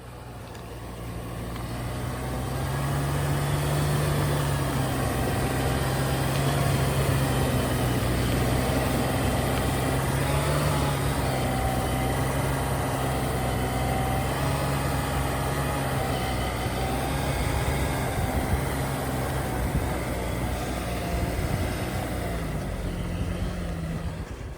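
Off-road four-wheel-drive vehicle's engine running steadily with slight changes in revs, fading up over the first few seconds, as it drives through snow.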